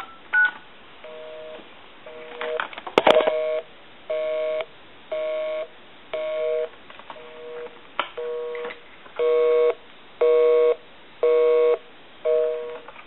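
North American busy signal (480 and 620 Hz together, half a second on, half a second off) coming through a Harris TS22 lineman's buttset after dialing a line that is in use. It follows the tail of the last touch-tone digit, and a loud click sounds about three seconds in.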